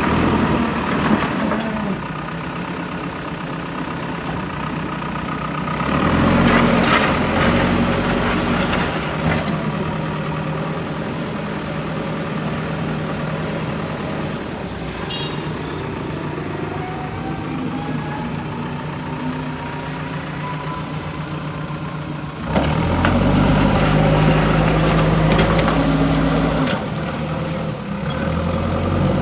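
JCB 3DX backhoe loader's diesel engine running under working load. It gets louder and heavier about six seconds in and again about three quarters of the way through. A faint slowly rising whine is heard in between.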